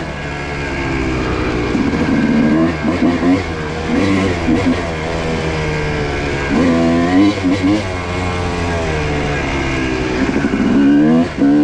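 Yamaha YZ250 single-cylinder two-stroke dirt bike engine revving up and down while riding a trail. Its pitch rises several times as the throttle opens and falls back between.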